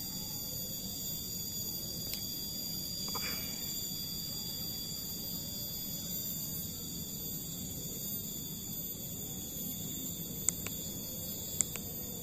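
A steady chorus of insects, several high, unbroken tones. Two sharp clicks sound near the end.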